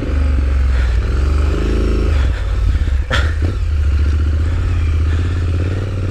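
Triumph Street Scrambler's 900 cc parallel-twin engine running at low revs, its note rising and falling with the throttle, plus a single sharp knock about three seconds in.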